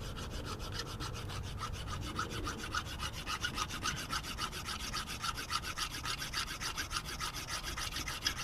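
Fast, even rasping strokes of a hand tool cutting or filing down a part, several strokes a second.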